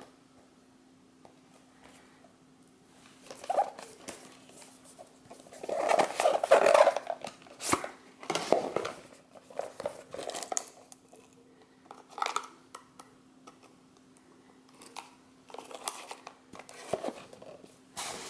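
Small cardboard product boxes handled by hand: irregular scraping, rubbing and tapping of thin card as a box is slid out of its sleeve and set down, loudest about six seconds in. A faint steady hum sits underneath.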